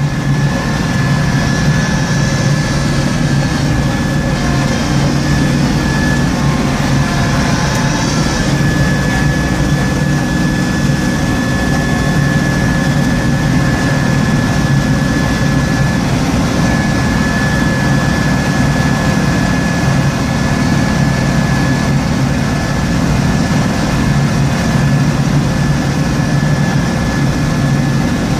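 Small Kubota tractor's engine running steadily while its front-mounted snowblower throws snow, heard from inside the cab, with a steady high whine over the engine.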